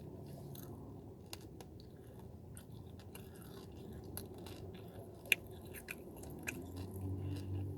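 A person chewing and biting into chicken wings close to the microphone: scattered small wet mouth clicks and smacks, with one sharper click about five seconds in.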